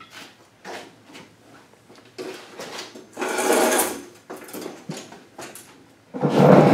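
Garage door opener rail being handled: light metal clicks and knocks, with a louder rattle, typical of the drive chain shifting inside the rail, about three seconds in. Near the end a loud steady noise starts suddenly.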